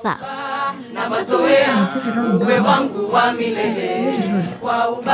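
Unaccompanied singing: held notes that waver and slide between pitches, with no instruments or beat.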